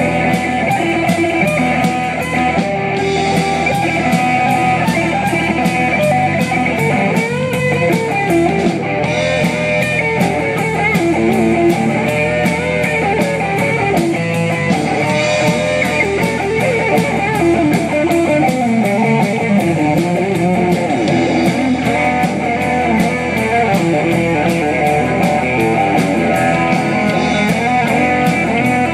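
Band playing an instrumental break of a rock song, with guitar over a steady beat.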